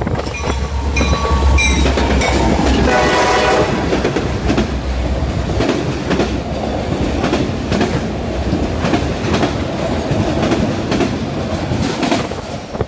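Freight train passing through a grade crossing: the crossing bell rings as the locomotive arrives and sounds a short horn blast about three seconds in, then the cars rumble by with a steady clickety-clack of wheels over the rail joints.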